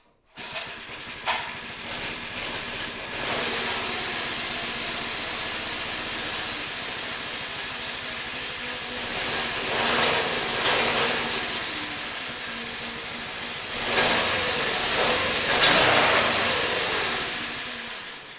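Small 97cc single-cylinder mini bike engine pull-started on choke, catching on the first pull and running steadily. It is revved up about ten seconds in and again near the end, then dies away as it is shut off.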